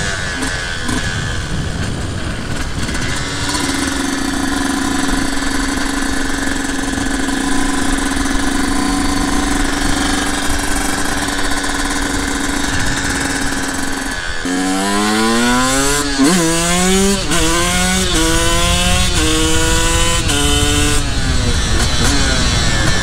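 Sherco 125cc two-stroke supermoto engine heard from the rider's position. It runs at a steady cruise for the first part. From about two-thirds in, it accelerates hard through several gear changes, each a rising whine that drops back at the shift.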